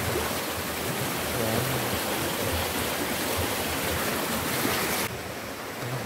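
Shallow mountain stream rushing over rocks in a steady wash of water noise. About five seconds in it suddenly turns quieter and duller.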